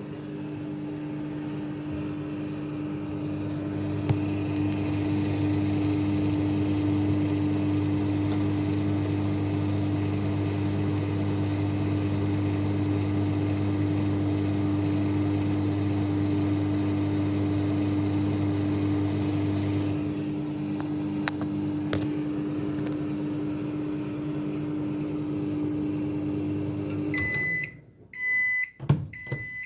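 Microwave oven running with a steady hum, which stops near the end. Three short beeps follow, signalling that the heating cycle has finished.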